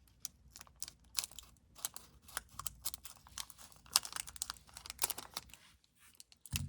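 Trading card pack being torn open and handled: irregular scratchy crinkles, rustles and small clicks of the foil wrapper and cards.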